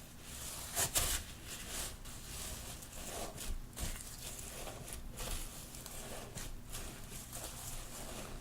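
Glossy slime being worked by hand, giving sticky crackling and small popping sounds, with the loudest pops about a second in.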